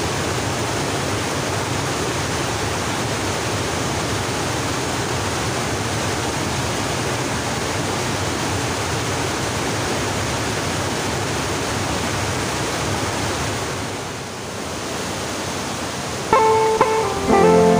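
Steady rush of a fast-flowing river. Acoustic guitar music comes in near the end.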